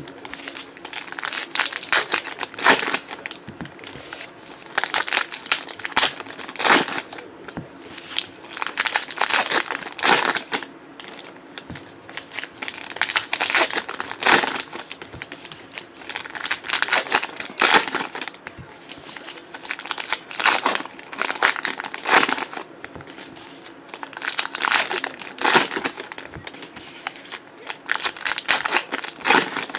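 Trading-card pack wrappers crinkling and tearing as packs are ripped open by hand, in repeated irregular bursts.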